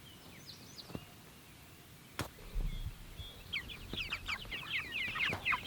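Chickens cheeping: a dense chorus of short, high, falling chirps that starts a little past halfway and grows louder, after a quiet start with a few faint chirps and a single sharp click.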